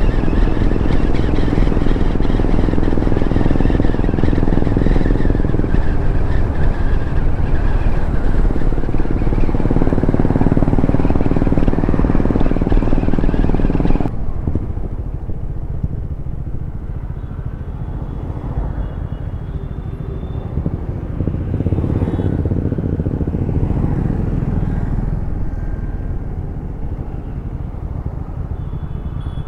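Motorcycle ride on a KTM 390 Adventure, heard from the rider's position: its single-cylinder engine running at road speed under heavy wind rush. About halfway through, the wind noise drops away abruptly, leaving the steadier engine and road sound.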